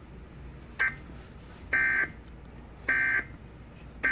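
Three short bursts of NOAA Weather Radio SAME digital data tones, about a second apart: the End of Message code that closes a broadcast warning. A brief blip comes just before them.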